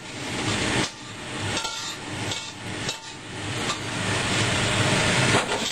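A metal utensil scraping and clinking against a frying pan as cooked food is scraped out onto a plate. The rough noise swells and dips in a few long strokes.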